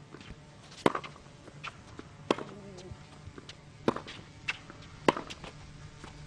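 Tennis rally on a hard court: sharp racket strikes on the ball about every second and a half, with softer ball bounces in between.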